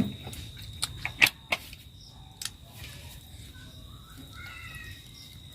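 Metal serving utensils clinking against dishes: about six sharp clinks in the first two and a half seconds, the loudest a little over a second in.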